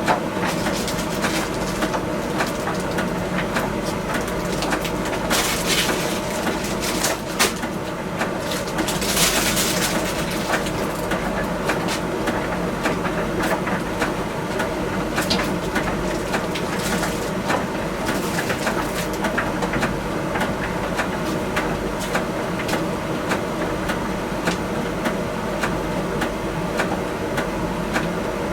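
Miele T1 heat-pump tumble dryer running: a steady hum with frequent light clicks and knocks throughout.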